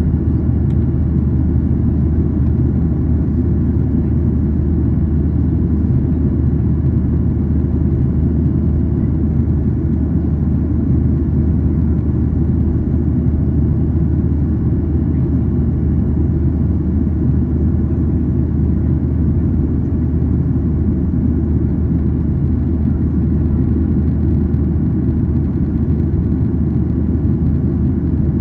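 Steady low rumble of a Boeing 737-800's CFM56-7B engines and airflow, heard inside the passenger cabin during the climb after takeoff.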